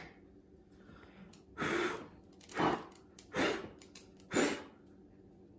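A person blowing hard at a cupcake's birthday candle four times, short rushes of breath about a second apart, the first the longest. The candle is a trick relighting one that stays lit, so the puffs are repeated.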